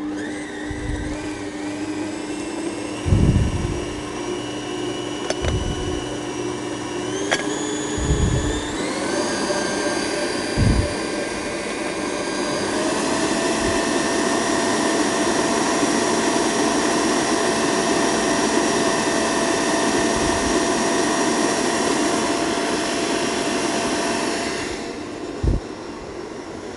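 Kenwood stand mixer's motor running with its wire balloon whisk, whipping cream, cream cheese and sugar in a steel bowl. The motor pitch steps up twice as the speed is raised and then winds down near the end. A few dull knocks sound along the way.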